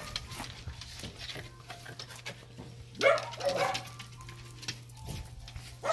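Dogs barking: one loud bark about three seconds in, followed by a couple of shorter ones, over a steady low hum.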